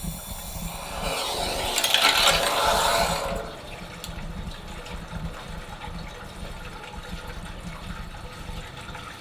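Water rushing through the supply pipe into a hot water tank as the valve is opened, loudest about two to three seconds in, then settling to a quieter steady flow as the tank fills.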